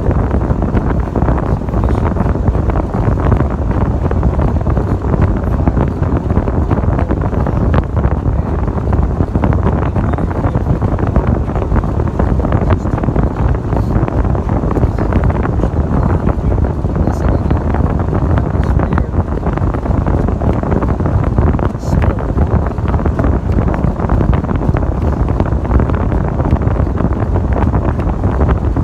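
Steady low rumbling noise from a lifted 1996 Ford Bronco driving on snowy roads: engine, tire and wind noise together, with no single sound standing out.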